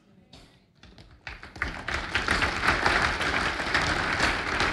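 A short hush, then a congregation starts applauding about a second in: dense clapping from many hands that holds steady.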